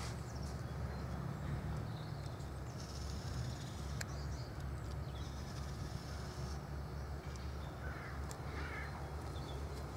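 Vintage Solo Rex chainsaw's two-stroke engine idling steadily, its chain stopped where aramid fibres pulled from the protection trousers have wound into the drive sprocket and jammed it.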